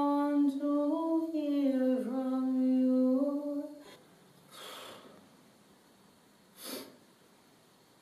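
A woman singing a cappella, holding long, steady notes with a dip in pitch about two seconds in; the voice stops about four seconds in. Two short, soft breaths follow.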